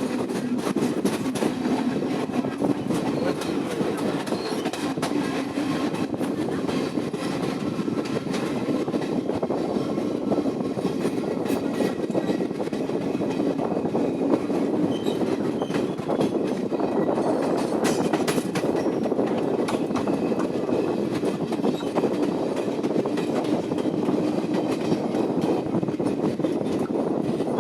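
Train rolling past: a steady rumble of steel wheels on the rails with frequent clicks.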